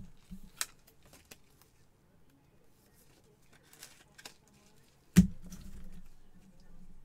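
Gloved hands sleeving trading cards and sliding them into rigid plastic top loaders: faint clicks and light rustles of card and plastic, with one sharp knock about five seconds in.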